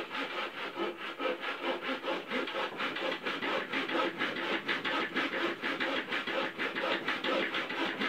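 Hand saw cutting a thin slice off the end of a dead wood branch, in quick, regular back-and-forth strokes.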